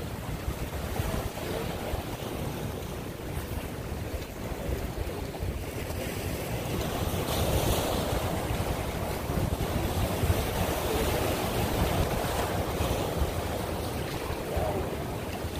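Wind rushing over the microphone, with small waves washing against the jetty rocks.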